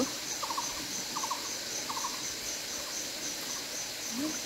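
Insects chirping in a fast, steady, high-pitched pulse over the constant hiss of a shallow stream, with a lower three-pulse call repeating about every two-thirds of a second and growing fainter.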